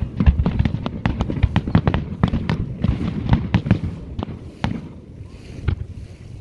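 Aerial fireworks display: a rapid string of bangs and crackles from bursting shells, thinning out to a few scattered bangs about four seconds in.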